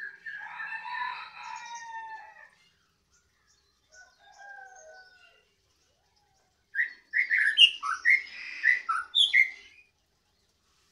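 Caged songbird singing very loud: a drawn-out call at the start, then a quick run of short, sharp chirping notes, the loudest part, from about two-thirds of the way in.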